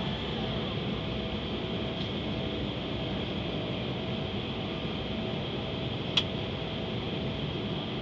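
Steady cabin noise of a jet airliner in flight on approach: engine and airflow rumble with a faint steady whine. A single sharp click about six seconds in.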